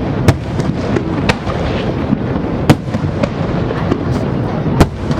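Fireworks shells bursting overhead: four sharp, loud bangs about a second or two apart, with several fainter pops between them, over a steady background rumble.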